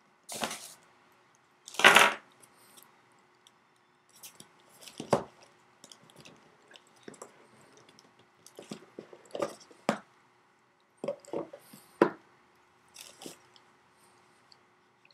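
Packaging being handled and opened by hand: irregular rustles, crinkles and scrapes of cardboard and plastic. The two loudest come about half a second and two seconds in, with smaller ones scattered after.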